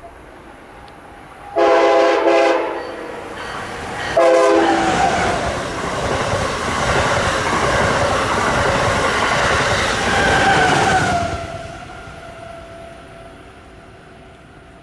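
Amtrak Acela Express high-speed trainset passing at speed. Its chord horn sounds a longer blast then a short one, followed by a loud rush of wheels and air. A tone drops in pitch as the train goes by and the noise fades away.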